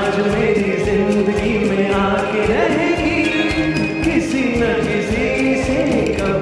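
Male voice singing a Hindi film melody into a microphone, with gliding held notes, over instrumental accompaniment with a steady beat.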